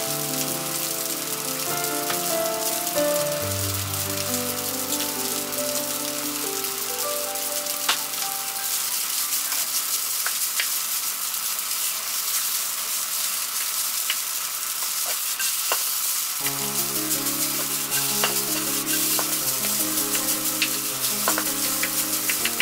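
Fried rice sizzling in a hot frying pan while it is stirred and tossed with a plastic spatula, which scrapes and taps against the pan now and then. Background music with held notes plays for the first half and again near the end.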